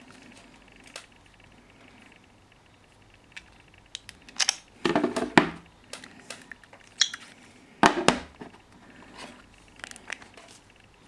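Scattered clicks and light knocks from handling phones, with two louder clattering bursts, one about five seconds in and one about eight seconds in.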